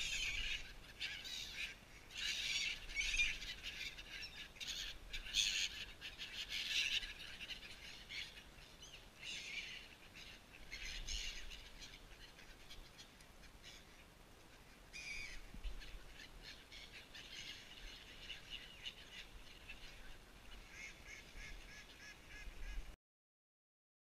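A flock of gulls calling harshly over one another, the calls densest in the first half of the clip and thinning out after. The sound cuts off abruptly about a second before the end.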